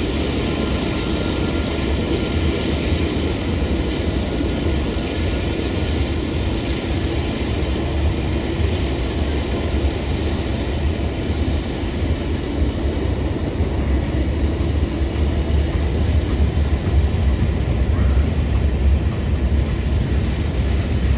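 Freight train rolling past, a steady heavy rumble of railcars and wheels on the rails that grows a little louder near the end.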